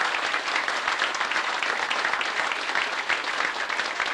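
A crowd applauding, many hands clapping steadily at once.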